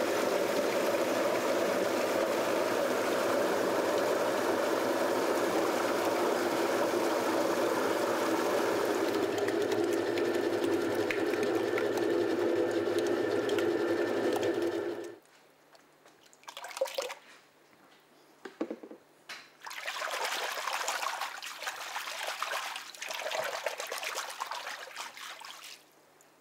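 Paper pulp beater running, its roll churning wet pulp and water in the tub with a steady loud sloshing drone that cuts off about halfway. Then water splashes and pours in uneven bursts, quiet at first and louder near the end.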